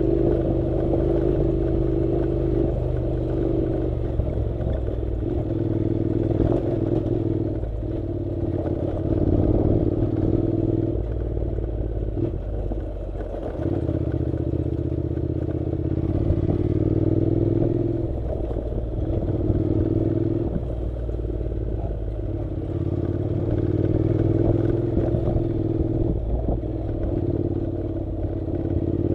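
Honda NC700's parallel-twin engine running on a dirt track, its pitch rising and falling and dipping several times as the throttle is eased and opened again, with knocks from the rough road underneath.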